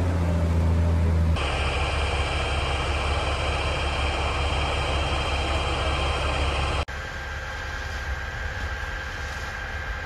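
Fire truck engines running steadily with a low drone. The sound changes abruptly about a second in, then drops quieter about seven seconds in, but the engine drone carries on.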